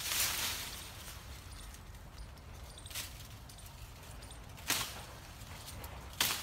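Leaves rustling at the start, then three sharp cracks spread about a second and a half apart from the branches of a tree a person is climbing in.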